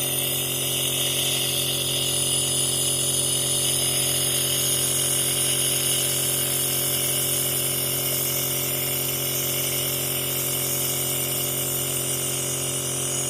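Nebulizer's compressor running steadily: a constant motor hum with a high hiss.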